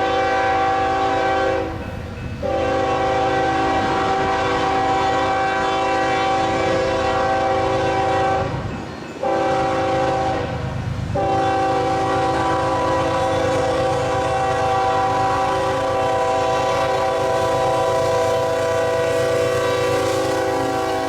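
Union Pacific locomotive air horn sounding the grade-crossing signal: two long blasts, a short one, and a last long blast held to the end. It plays a chord of several tones over the low rumble of the passing train.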